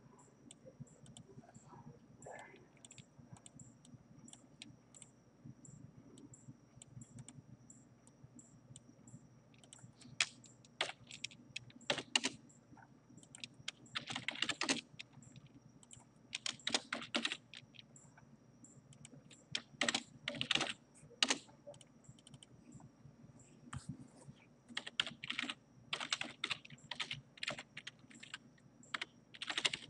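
Computer keyboard typing in irregular bursts of keystrokes, beginning about a third of the way in after a quieter stretch of faint clicks. A faint steady high whine sits underneath.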